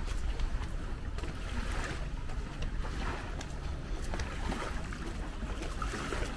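Wind buffeting the microphone in a low, fluttering rumble over a steady wash of sea-front ambience, with faint scattered clicks.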